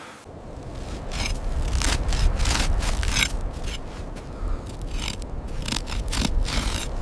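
Snow being crunched and scraped in a run of irregular short strokes over a low rumble.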